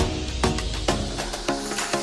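Background music with a steady beat of percussive hits, about two a second, under held notes.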